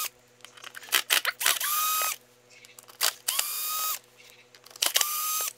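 Ridgid cordless drill-driver backing out airbox screws. There are three short runs of the motor, each winding up to a steady whine. Small clicks and knocks come between the runs.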